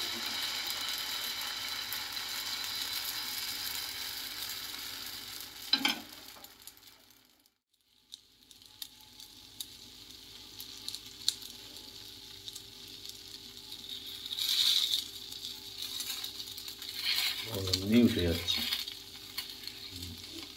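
Thin crepe batter cooking on a hot, lightly oiled non-stick pan: a steady sizzle with faint crackles. It cuts out about seven seconds in and comes back quieter, with a single knock just before the break.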